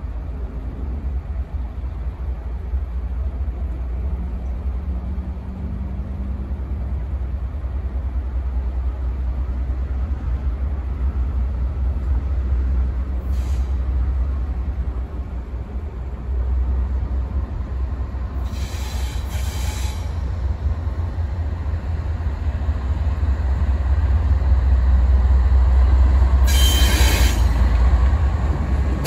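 Union Pacific diesel freight locomotive approaching, a low rumble that grows louder as it draws near, with two brief hissing bursts, one about two-thirds of the way through and one near the end.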